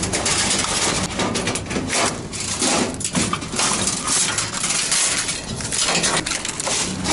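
Sheet-metal fluorescent light fixtures clattering and scraping as they are shifted and pulled apart by hand, with frequent irregular metallic clanks and clinks.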